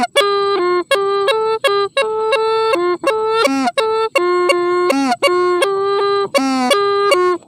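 Hmong raj le, a small hand-held bamboo pipe, playing a solo melody of held notes separated by brief breaks, with several phrases ending in a downward slide in pitch. It stops abruptly at the end.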